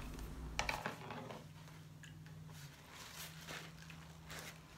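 Quiet room tone with a steady low hum and a few faint, short soft scuffs.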